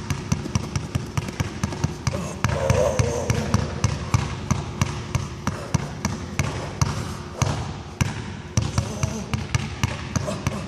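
Two basketballs being dribbled at once on a hardwood gym floor: a quick, unbroken run of hard bounces.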